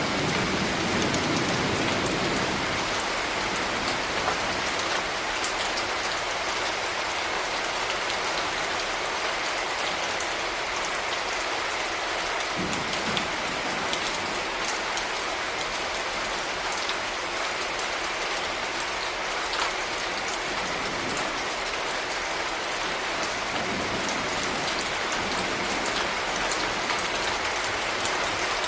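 Steady rain pattering on hard surfaces, with scattered individual drops ticking out above the even hiss. Brief low rumbles come at the very start and twice more, about a third of the way in and past the middle.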